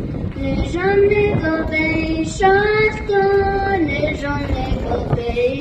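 A young girl singing solo in Navajo into a handheld microphone, holding long notes that step up and down in pitch.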